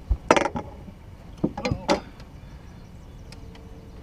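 Knocks and clattering from a landing net and a landed bass on a boat deck as the fish is unhooked: a dull thump, a sharp clatter just after, then a short flurry of knocks and rattles about one and a half to two seconds in.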